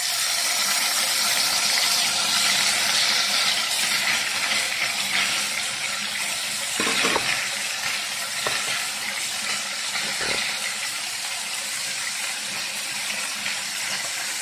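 Fish slices shallow-frying in hot oil in a non-stick pan: a steady sizzle, with a couple of brief knocks about seven and ten seconds in.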